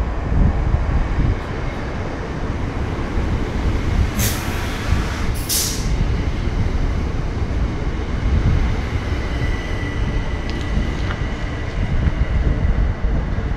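Train rumbling on the line, with two short hisses about four and five and a half seconds in and a faint thin squeal near the end.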